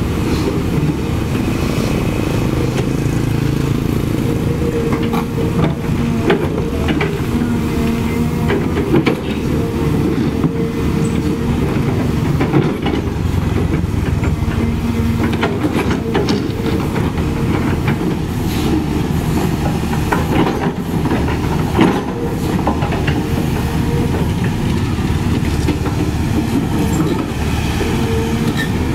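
CAT 320D2 hydraulic excavator's diesel engine running steadily under digging load, with scattered knocks and clanks as the steel bucket breaks up old asphalt and dirt.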